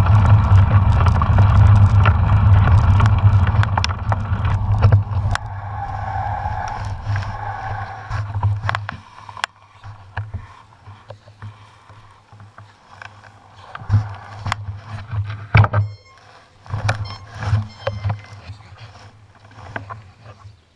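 Wind buffeting the microphone of a mountain biker's action camera while riding, a heavy steady rumble with rolling noise. About five to nine seconds in it gives way to a much quieter spell of scattered clicks and knocks.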